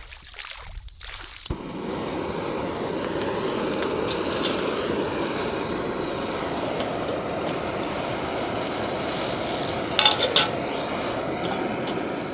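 Small canister camp stove burning with a steady hiss. About ten seconds in, a few sharp metal clinks as a black cook pot is set down on the burner.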